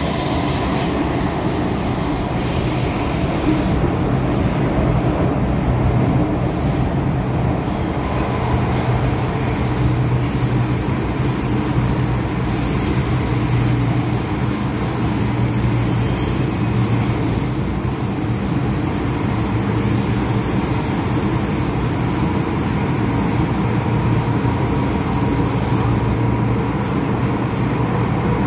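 Cabin noise of an MTR M-Train electric multiple unit running: a steady rumble with a low hum, and faint high-pitched squeals that come and go in the middle.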